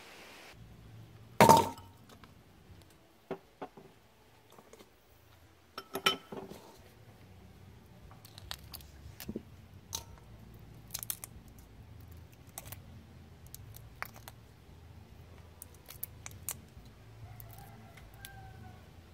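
Raw shrimp being handled in a stainless steel bowl ready for peeling: a sharp metallic clink about one and a half seconds in and another about six seconds in, then scattered small clicks and crackles.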